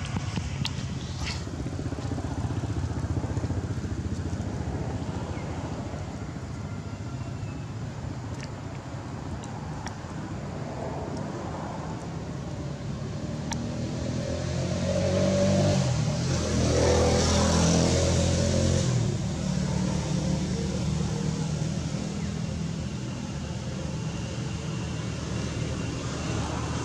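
Steady low engine rumble of motor traffic, swelling to its loudest as a vehicle passes about two-thirds of the way in, its engine pitch shifting as it goes by.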